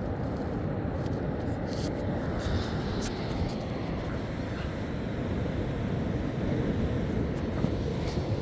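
Steady, even low rumbling noise with a few faint clicks.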